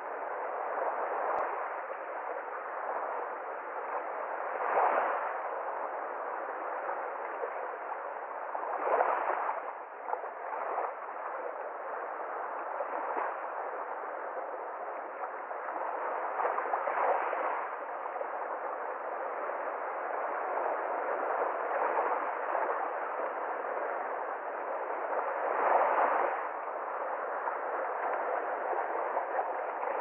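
Small sea waves washing onto a pebble beach: a steady wash that swells every few seconds as each wave comes in and drains back.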